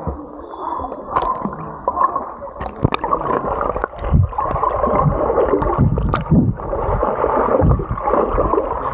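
Water sloshing and gurgling close to the microphone, muffled, with irregular surges and a few sharp knocks.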